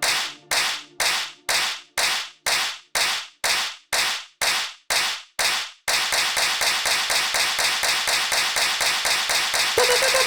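Sampled electronic clap hits playing back on every beat at about two a second, then at about six seconds doubling up into a fast clap roll, a dance-track build-up. A held pitched tone comes in near the end.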